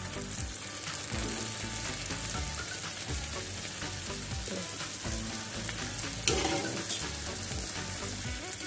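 Shrimp in oyster-sauce glaze sizzling on a hot non-stick grill pan while metal tongs turn and move them, with small clicks and one sharp clack of the tongs against the pan about six seconds in.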